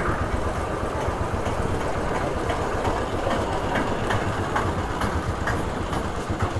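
Motorcycle engine running at low speed with a steady low pulsing, the bike rolling slowly down a stone-cobbled lane.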